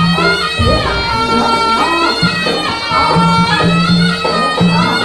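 Javanese folk ensemble music accompanying a barong dance: a reedy wind instrument plays a bending, gliding melody over steady held tones and drums.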